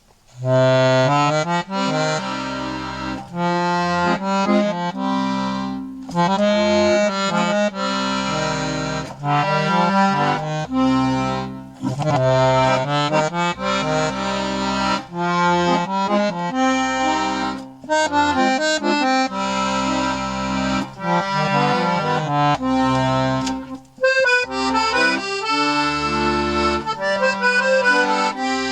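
A freshly restored 72-bass accordion playing an Italian folk tune: a melody over a low bass and chord accompaniment, with brief breaks between phrases about every six seconds.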